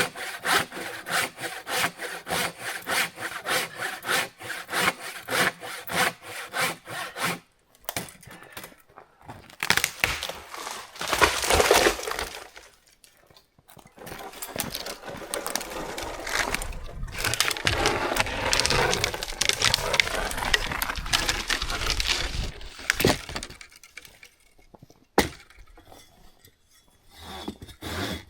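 A hand saw cutting wood in quick, even back-and-forth strokes, about three a second, stopping about seven seconds in. Later there is a louder crack and a long stretch of rasping and rubbing on wood.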